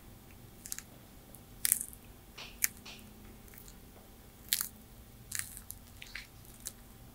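A tortoise biting and crunching through food, a string of about ten short, irregularly spaced crunches.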